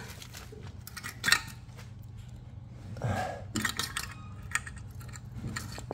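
Scattered light clicks and knocks from a small used Mitsubishi engine being handled and turned over, with one sharper knock about a second in and a brief scrape about three seconds in, over a faint low hum.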